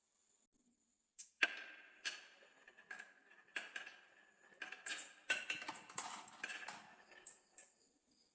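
Marbles rolling and clacking down a marble run track, a string of knocks and rattles beginning a little over a second in and dying away near the end, with a short ringing note on some of the hits.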